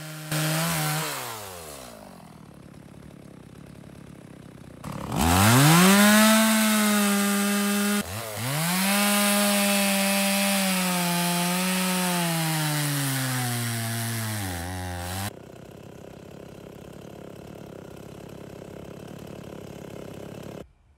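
Stihl chainsaw cutting into a dead hardwood stump: its engine winds down just after the start, then runs loud at full throttle twice, from about five and eight seconds in, the pitch sagging as the chain bites into the wood, and it stops about fifteen seconds in.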